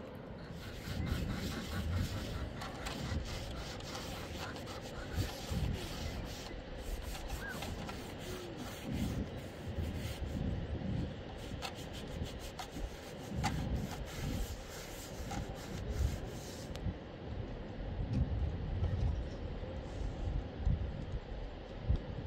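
Scrubbing by hand in a plastic basin: a rough rubbing with many irregular clicks and knocks, and low thuds now and then.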